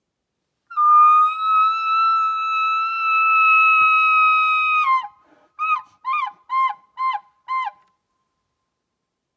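Elk bugle call blown by a hunter through a corrugated bugle tube, imitating a bull elk: one long, high whistle of about four seconds that drops at its end, followed by five short falling notes in quick succession.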